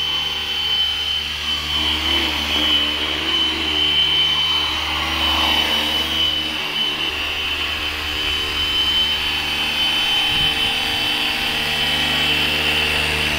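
Electric 450-size RC helicopter (Flywing FW450 mechanics) in flight: a steady high whine from the motor and drive over the whir of the rotors.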